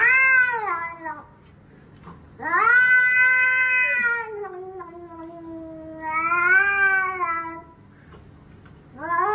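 Grey cat meowing in long, drawn-out calls, several in a row with short pauses between, the pitch bending up and down within each call.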